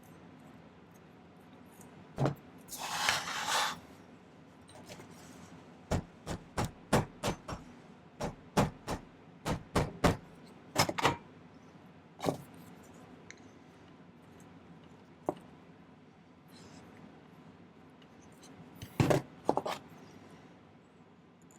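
Hand tools and sterling silver wire being handled on a jeweller's bench: a scraping rub about three seconds in, then a run of sharp metallic clicks and taps, with a few more scattered clicks later on.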